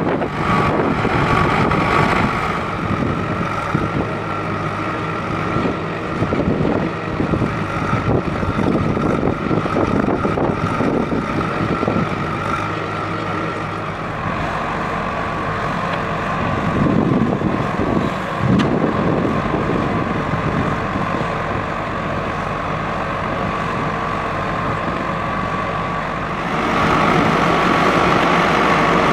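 Diesel engines of a JCB 3DX backhoe loader and a tractor running steadily under working load, with a steady high whine over the engine note. The sound shifts about halfway through and gets louder near the end.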